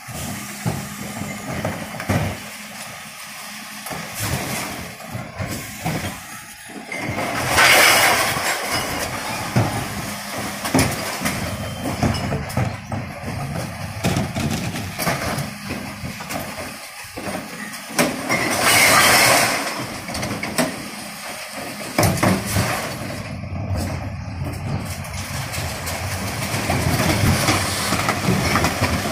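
Mercedes Econic refuse truck with a Faun Variopress body running while its Zoeller bin lifters raise and empty wheelie bins of glass, cans and plastic, with bins clattering against the lifters. Two loud crashing rushes of noise, about 8 and 19 seconds in, as loads tip into the hopper.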